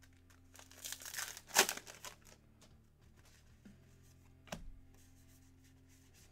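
Foil wrapper of a trading-card pack being torn open and crinkled, a rustling burst that peaks about a second and a half in. A single knock follows about four and a half seconds in.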